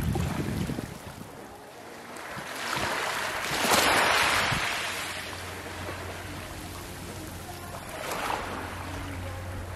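Small waves lapping onto a beach of coral rubble and pebbles. One wash swells up about four seconds in and fades, and a smaller one follows near the end, with a low rumble at the very start.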